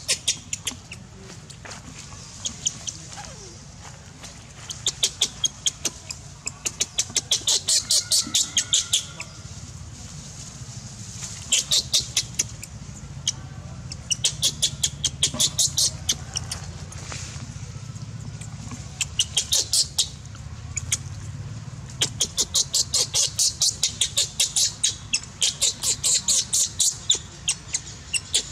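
Repeated bursts of rapid, high-pitched chirping, about nine pulses a second, each burst lasting one to several seconds, over a steady low hum.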